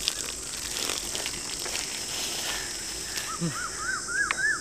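Water splashing and dripping from a pot-like vessel as a man drinks from it. From about three seconds in, a bird calls a quick series of short arched whistled notes that climb in pitch, over a steady high insect chirring.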